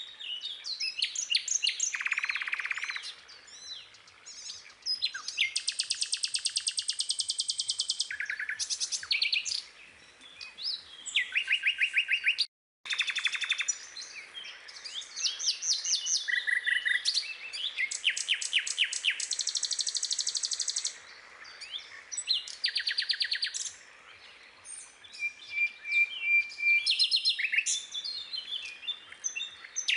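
Several birds chirping and singing, with fast trills and runs of quick repeated high notes; the sound cuts out for a moment about twelve seconds in.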